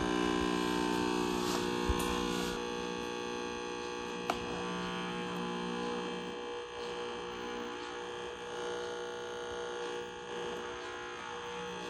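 A camcorder's video signal played as audio through a CRT television's speaker: a steady buzzing hum of many stacked tones whose sound shifts as the camera's picture changes. Two short clicks come about 2 and 4 seconds in.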